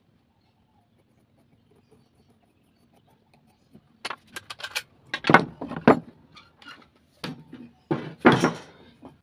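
Wood knocking on wood as blocks of scrap timber are handled on a wooden workbench. A quick run of sharp knocks starts about four seconds in, with a louder knock a second later, a few spaced knocks after that, and a longer clatter near the end.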